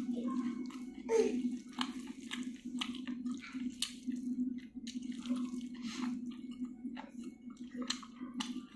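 Close-up wet chewing and smacking mouth sounds of someone eating, many short clicks and squelches, over the steady low hum of a moving train.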